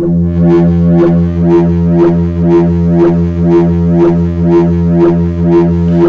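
Make Noise DPO oscillator drone with its wavefolder swept by the MATHS 'swirly bird' function, two MATHS channels retriggering each other. The low steady tone brightens and dulls in an even pulse about twice a second.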